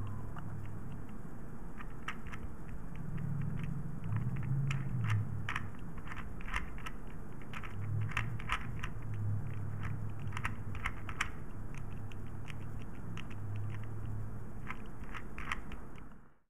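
Small irregular metallic clicks of an Argus A camera's film sprocket and advance gears being turned by hand, over a steady low hum. It cuts off suddenly near the end.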